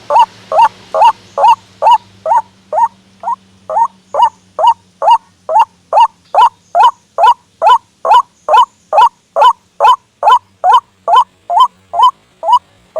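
White-breasted waterhen (ruak-ruak) calling: a long run of loud, evenly repeated croaking notes, about two and a half a second. This is the bird's territorial call as played back to lure it in.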